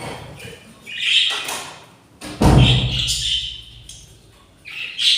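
Budgies calling in short high chirps and squawks, with one loud thump about two and a half seconds in.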